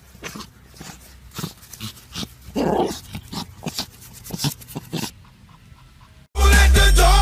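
A dog making a run of short vocal sounds, the loudest about two and a half seconds in. Loud music starts near the end.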